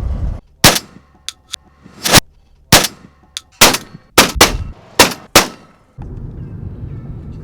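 A rapid series of shotgun blasts: about eight loud shots, each trailing a short echo, with a few fainter, sharper cracks between them. Near the end the shots give way to a steady low rumble.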